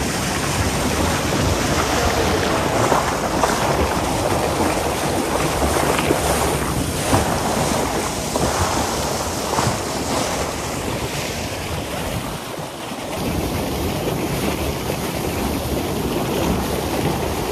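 Wind rushing over the microphone and water spraying along the hull of a fishing boat under way at speed, a loud steady rush.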